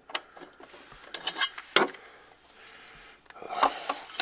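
Scattered light clicks and taps of a metal parking brake lever bracket being handled and held against the car's floor pan, with a sharper knock about two seconds in and a few quick clicks near the end.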